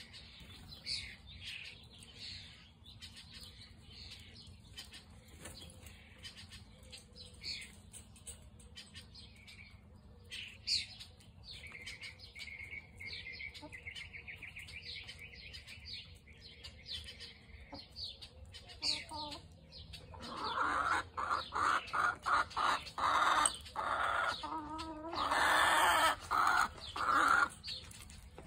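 Chickens clucking, with many short high chirps and a trill. About twenty seconds in, a run of louder clucks starts and repeats in quick succession.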